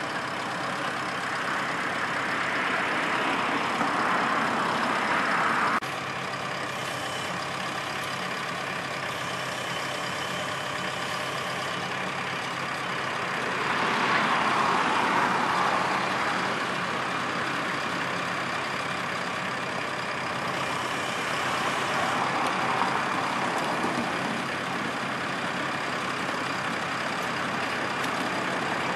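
Diesel engine of a telehandler running steadily on a steel-erection site, with three louder swells of a few seconds each; the first cuts off suddenly about six seconds in.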